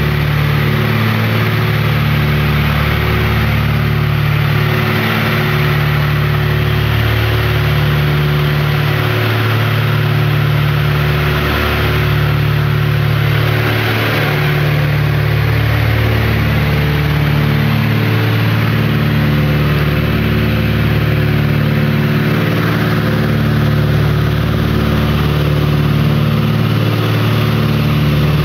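The Cessna 310's twin six-cylinder piston engines and propellers run steadily with a loud drone. The drone swells and fades in a slow, regular beat every few seconds, the sign of the two engines turning at slightly different speeds. A steady rushing noise sits behind the engine sound.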